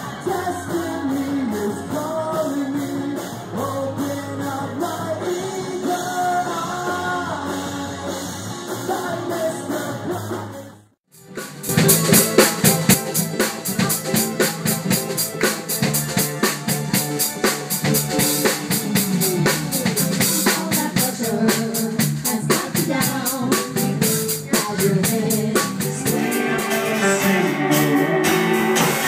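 Live band music with singing, from several gigs cut together. It drops out briefly about eleven seconds in, then picks up louder with a steady drum beat and vocals.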